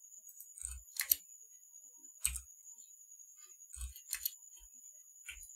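Faint, scattered computer mouse and keyboard clicks, about eight spread over a few seconds, as edges are cut into a 3D model. A faint steady high-pitched whine runs underneath.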